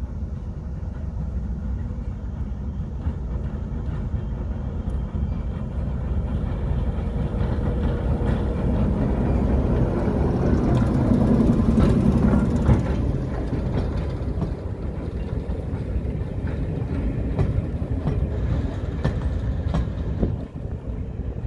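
British Rail Class 08 diesel shunter, with its English Electric six-cylinder engine, running as it hauls coaches past, loudest as the locomotive goes by about halfway through. After that the passing coaches' wheels make a run of sharp clicks on the track.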